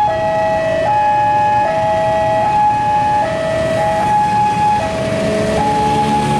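Electronic warning alarm of a railway level crossing, a loud two-tone signal switching back and forth between a higher and a lower tone about every 0.8 seconds, sounding over steady road traffic noise.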